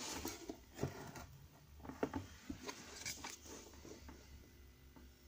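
Faint handling noises: light irregular taps and rustles as a plywood disc and a pyrography pen are moved about in the hands.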